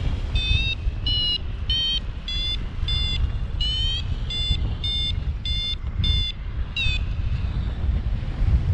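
Paraglider's variometer beeping, short high beeps nearly twice a second, some rising in pitch, stopping about seven seconds in: its climb tone, a sign that the glider is rising in lift. Wind rumbles over the microphone throughout.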